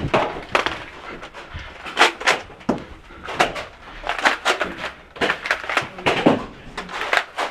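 Nerf blasters firing and foam darts hitting walls and doors: an irregular run of a dozen or so sharp clacks and knocks.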